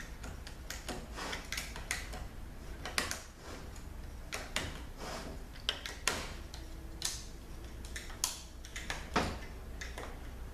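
Sharp, irregular metal clicks and light scrapes as a small screwdriver tucks a steel snap ring into its groove around the inside of a 62TE transmission's input clutch drum, seating the ring that holds the overdrive clutch pressure plate.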